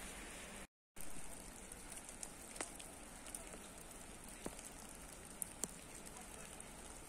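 Sleet, rain mixed with wet snow, falling on a wet street: a steady even hiss, with a few sharp single ticks of drops landing nearby. The sound drops out completely for a moment about a second in.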